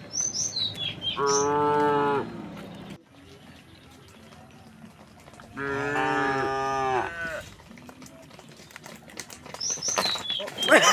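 Cattle mooing: two long moos, the first about a second in and the second near the middle, each lasting roughly a second and a half. Short high bird chirps come just before the first moo and again near the end.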